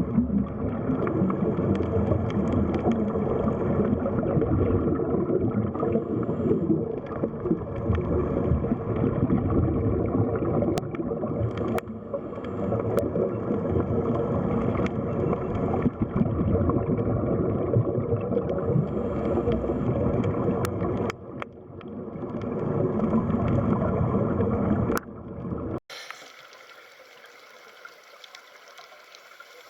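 Steady rushing, gurgling water noise, as picked up by a camera under water, with a few faint ticks. Near the end it cuts off abruptly to a much quieter, thinner hiss.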